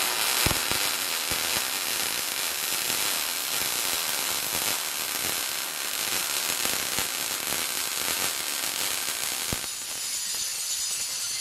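MIG welder crackling steadily as it runs a weld along the seams of a steel steering-wheel rim built from welded slices. About nine and a half seconds in, this gives way to an angle grinder grinding the welds on the rim.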